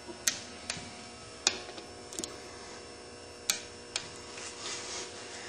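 Scattered sharp clicks and taps from handling tools and parts on the engine bench, about six or seven of them, over a steady electrical hum.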